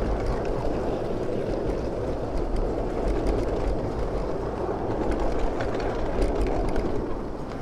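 Miniature ridable train rolling along its track: a steady rumble of small wheels on the rails with scattered light clicks.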